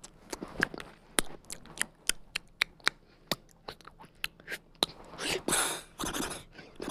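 Mouth-made sound effects: a string of sharp, irregular clicks and crackles, a few each second, then breathy hissing from about two-thirds of the way through.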